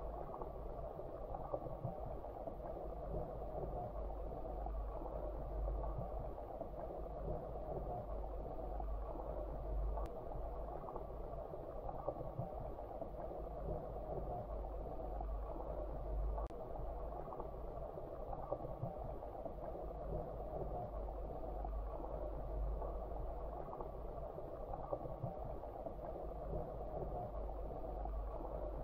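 Steady, muffled underwater ambience of a shallow stream, as picked up by a submerged camera: an even watery hiss over a low rumble, with two faint ticks, one a little before the middle and one a little after.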